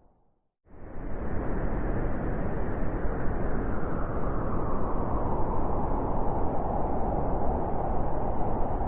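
Winter wind blowing, a steady low rushing noise. It starts abruptly out of a moment of silence under a second in, then holds steady.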